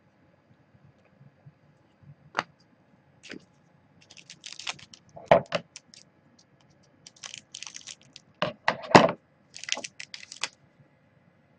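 A hockey card pack's wrapper crinkling and crackling as it is torn open, and the cards being handled and flipped through. The sound comes as irregular clusters of crackles and snaps, the sharpest about five and nine seconds in.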